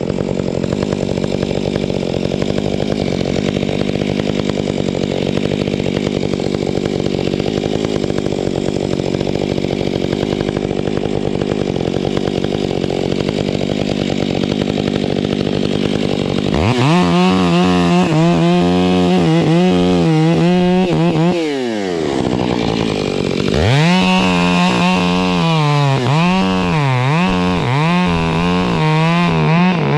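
Chainsaw running steadily at low speed, then opened up to full throttle twice, a little past halfway and again a few seconds later after a short drop. Its pitch wavers up and down under throttle and load.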